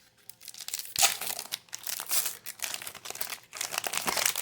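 Trading-card pack wrapper crinkling as it is handled and opened: a run of sharp, irregular crackles starting about a second in.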